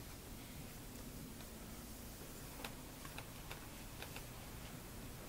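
Faint, near-quiet ambience with a steady low hum and a handful of faint, irregular ticks scattered through the middle.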